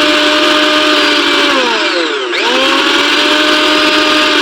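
Bajaj mixer grinder motor running at speed with a high whine, switched off about a second and a half in so its pitch falls as it spins down, then switched back on at once and spinning up to full speed again. It runs smoothly after the repair, with a new coupler fitted.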